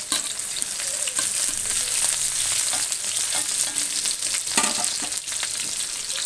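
Chopped garlic and green chillies sizzling and crackling in hot mustard oil in a kadhai, the tadka for the dish, with a spatula stirring and scraping the pan now and then.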